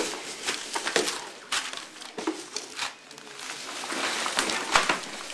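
Paper crinkling and rustling in irregular bursts, with scattered sharp clicks and scuffs, as bodies move over loose magazine and newspaper pages spread on a hard floor. It grows busier and louder about four seconds in.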